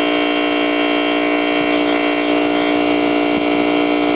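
Compressor salvaged from an 8,000 BTU window air conditioner running as an air compressor, giving a steady, unbroken hum with a strong low tone. It is pumping air into a pneumatic gun's chamber to build up its pressure.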